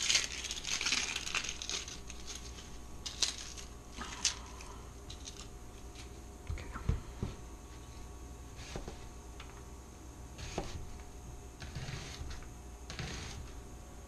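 Crinkling, papery rustling and tearing with scattered light knocks and ticks, from vegetables being handled and prepared on a kitchen counter; the rustling is busiest in the first couple of seconds.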